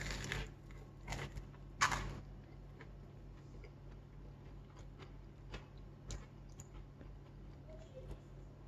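A person biting into and chewing crisp fried sesame prawn toast: a few sharp crunches in the first two seconds, then faint chewing over a low steady hum.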